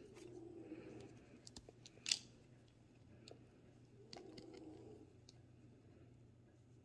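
Faint handling of a small plastic Woody mini figure: scattered light clicks and taps, with one sharper click about two seconds in.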